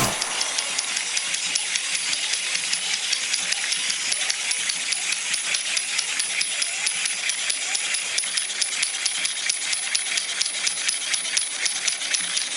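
Steady, fast rattling and jingling of small hard objects, many clicks a second, keeping an even level throughout.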